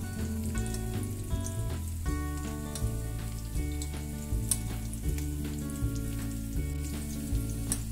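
Background music with held notes over a steady bass line, over a continuous sizzle of diced boiled potatoes frying in oil in a nonstick pan.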